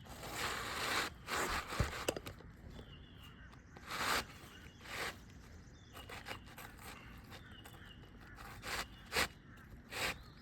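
Short, separate scraping and rustling strokes of a roofer handling 3-tab asphalt shingles, with a sharp click about two seconds in.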